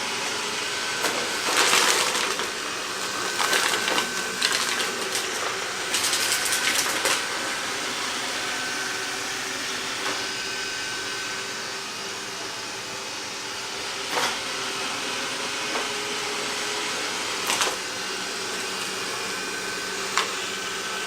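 Roborock S4 Max robot vacuum running with a steady whir and a faint high whine. Clusters of clicking and rattling break in during the first seven seconds, then a few single clicks.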